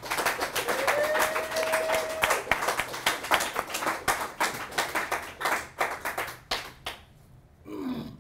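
Small audience applauding, dense clapping that thins out and stops about seven seconds in.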